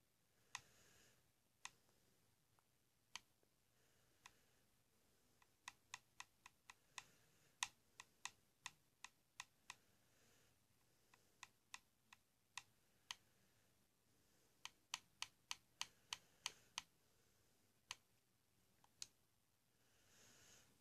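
Sharp clicks of computer keys or buttons being pressed over a faint room hush. They come singly at first, then in quick runs of about two to three a second through the middle and again in the last third.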